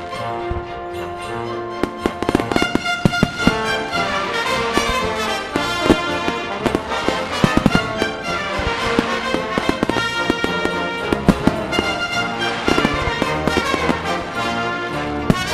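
Fireworks display going off to a music soundtrack: frequent sharp bangs and crackles, coming thicker after about two seconds, over continuous orchestral-style music.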